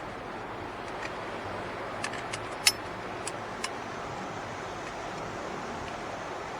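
A handful of light, sharp clicks and taps from the small parts of the ignition lock cylinder and switch housing being handled, clustered in the middle and the loudest near the middle, over a steady background hiss.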